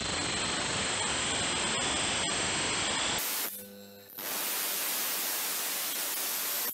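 Bench grinder wheel grinding a steel knife blade: a steady harsh hiss. It breaks off for about half a second a little past halfway, leaving the grinder motor's hum, then the grinding resumes.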